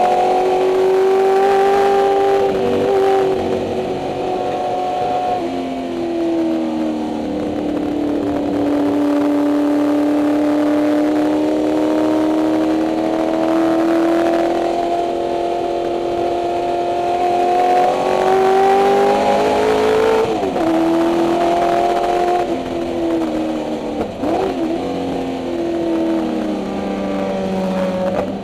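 Ford 289 Windsor V8 of a 1964 Mustang race car at racing speed, heard from inside the cabin. The engine note climbs steadily for about ten seconds, drops sharply about two-thirds through, then rises and falls in several shorter steps near the end.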